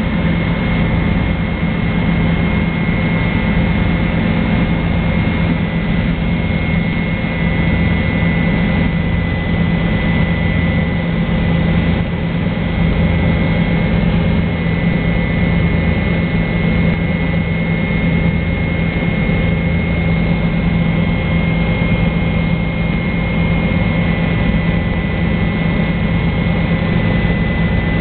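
Helicopter in flight heard from inside the cabin: steady engine and rotor noise, with a strong low hum and a thin high whine above it.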